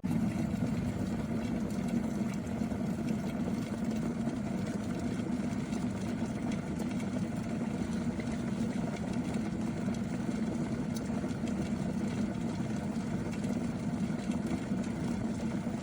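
Peach Street 1.7 L borosilicate-glass electric kettle at a full rolling boil: a loud, steady bubbling rumble. It keeps boiling because its auto shut-off, which the owner says should cut in about 10 seconds after the boil starts, is not switching it off.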